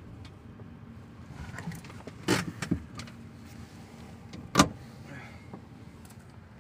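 Steady low road rumble inside a moving car's cabin, broken by a few sharp knocks: two a little after two seconds in, and a louder one past the middle.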